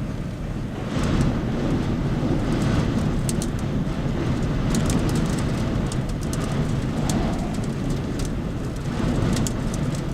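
Strong wind blowing and buffeting the microphone in a windstorm, a heavy low rumble that surges in gusts, with scattered light ticks and rattles throughout.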